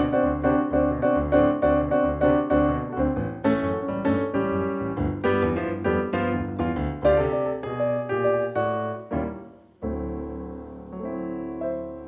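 Boogie-woogie piano played on a Roland RD-300NX digital stage piano: a steady rolling left-hand bass under right-hand chords. The piece ends with a brief flourish and a final chord struck near the end, left to ring and fade.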